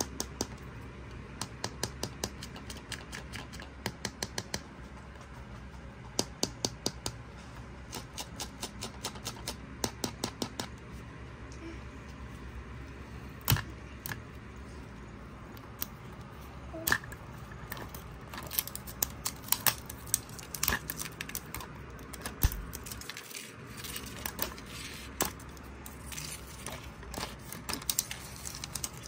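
Long fingernails clicking and tapping on a hard plastic toy capsule in quick runs of clicks, with scattered scratchy picking sounds later as the paper label is peeled off the plastic.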